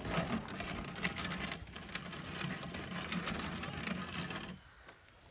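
Continuous crunching and scraping on a sleet-crusted icy surface, a dense gritty crackle that starts suddenly and stops abruptly near the end.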